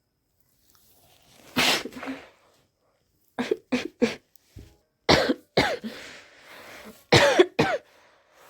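A person sneezing over and over in an allergy fit: one big sneeze about a second and a half in, then a quick run of about eight short, sharp sneezes.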